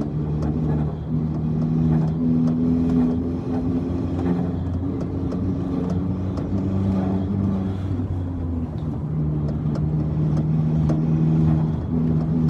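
MK1 Audi TT's turbocharged 1.8-litre four-cylinder engine worked hard in gear, its note stepping up and down as the throttle is pressed and lifted, with the turbo flutter that comes when the throttle shuts under boost.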